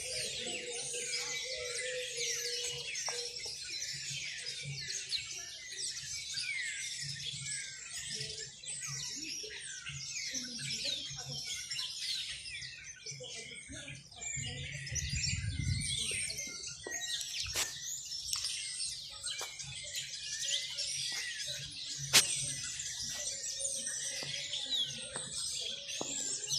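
Many small birds chirping at once in a dense, continuous chorus of quick overlapping calls. A few sharp clicks cut through it, the loudest about four-fifths of the way in.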